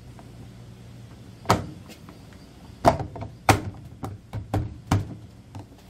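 Plastic rear cover of a top-loading washing machine being closed and pressed into place by hand: a series of about seven sharp knocks and snaps of plastic on plastic, the loudest about one and a half and three and a half seconds in.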